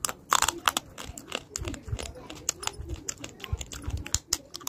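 A person biting and chewing hard, brittle pieces of clay, such as slate pencil or Multani mitti (Fuller's earth), giving an irregular run of sharp crunches and cracks, several a second.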